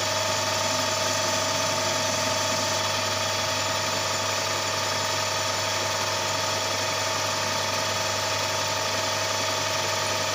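Emco Maximat lathe running with its chuck spinning, not cutting: a steady motor and gear hum with several constant tones over it.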